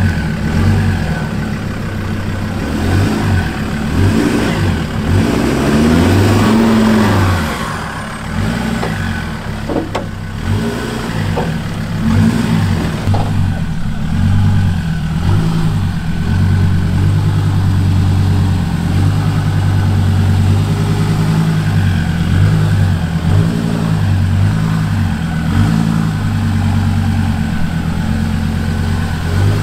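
Mazda BT-50 ute engines under load, revving up and easing off as the trucks crawl up a steep, rutted dirt climb, with a clear rise and fall in revs about six seconds in and a few knocks and bumps along the way.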